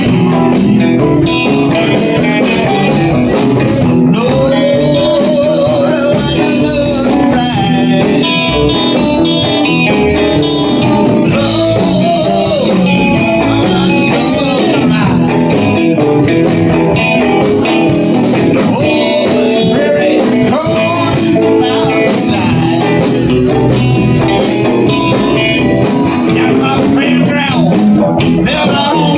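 Live band playing: several electric guitars, bass guitar and drum kit, loud and continuous.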